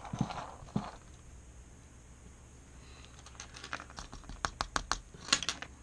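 Light, quick metallic clicks and taps from handling a disassembled Schlage Primus interchangeable lock core with small tools, starting about three seconds in and coming thickest near the end, after a short rustle at the start.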